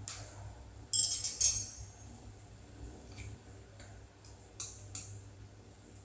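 A cooking utensil clinking against a soup pot. There is a loud cluster of clinks about a second in, then a few lighter single taps, over a faint steady low hum.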